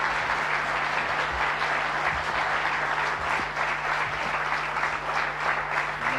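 Studio audience applauding steadily as a guest is welcomed onto the set.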